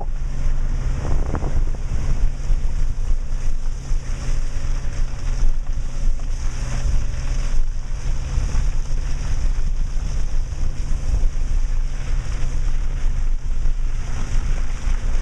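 Subaru Outback driving on a rough mountain trail, heard from inside the cabin: a steady low engine and tyre drone with rumbling and rustling noise over it.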